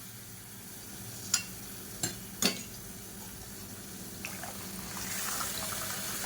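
Water being poured into a pan of rasam cooking on the stove over a low sizzle, with three sharp clinks in the first half; the hiss of the pouring grows louder about five seconds in.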